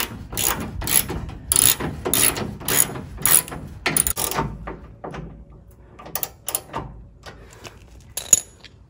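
Socket ratchet wrench snugging up a mounting bolt, its pawl clicking in quick runs about two strokes a second. About halfway through the clicks thin out to a few scattered ones, the sharpest near the end.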